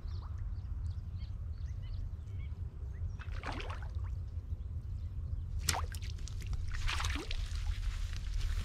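Water splashing as a hooked fish is struck and pulled thrashing out of a pond, in a few splashy bursts from about the middle on, the sharpest about two-thirds through. A steady low rumble runs underneath.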